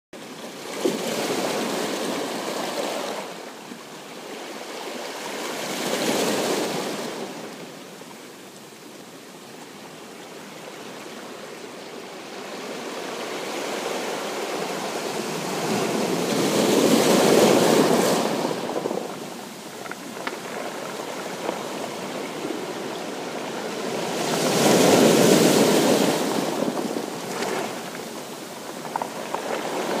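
Small sea waves breaking and washing over a shore of rounded stones, coming in slow surges of rushing water several seconds apart, the strongest about halfway through and again near the end.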